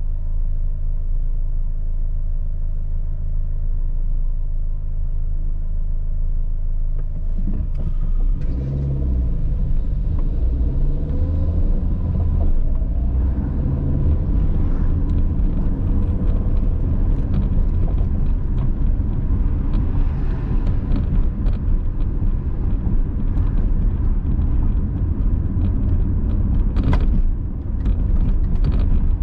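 Car engine idling steadily, then pulling away about seven seconds in, its pitch rising as it accelerates. Steady engine and tyre road noise follows while driving, with a brief knock near the end.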